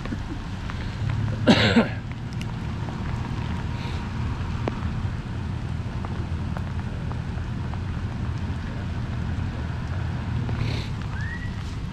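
Steady patter of rain under a low, constant hum. About a second and a half in there is one short, loud, high-pitched call that bends in pitch.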